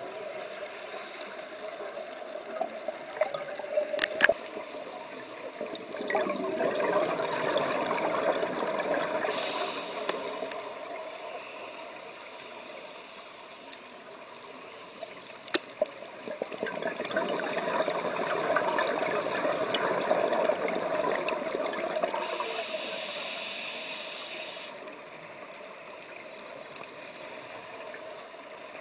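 Underwater scuba breathing heard through the camera housing: the diver's regulator and exhaled bubbles. Two long rushing, bubbling swells of several seconds each alternate with quieter stretches, a brief high hiss comes near the end of each swell, and there are a few sharp clicks.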